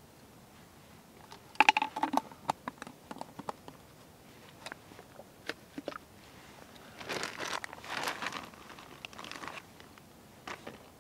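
Crinkly material being handled and crumpled: a run of sharp crackles and clicks about a second and a half in, then a longer spell of rustling a few seconds later.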